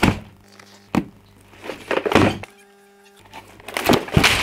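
Two sharp knocks about a second apart, then two swelling whooshes, the second as the shot blurs into a fast transition.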